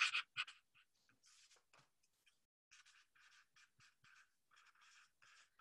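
Faint scratching of handwriting on a surface: a run of short strokes and pauses as someone writes out words.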